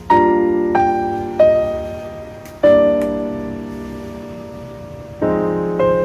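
Slow background piano music: single notes and chords struck at an unhurried pace, each left to ring and die away.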